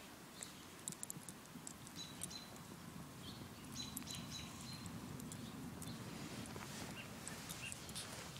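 Faint short high chirps, typical of birds, with scattered light clicks and rustles and a low rumble through the middle.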